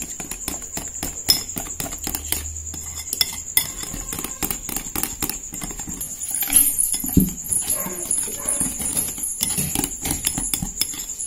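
Metal wire whisk beating thin gram-flour batter in a glass bowl, its wires clicking and tapping rapidly and irregularly against the glass. Around the middle, water trickles into the batter from a steel vessel.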